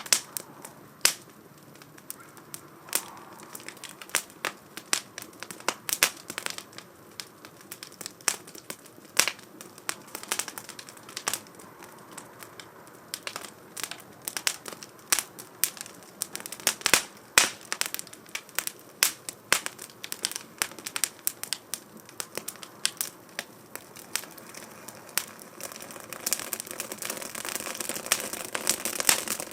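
Wood fire crackling in a small 2×4 STOVE fire stand, with irregular sharp pops and snaps. Near the end a steady rushing sound of the flames grows louder under the pops.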